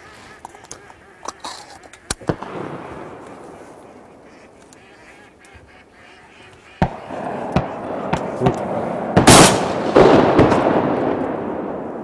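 Shotguns firing at incoming ducks: about four shots, one about two seconds in and three between about seven and ten seconds, each echoing away, the loudest about nine seconds in. Duck quacks sound between the shots.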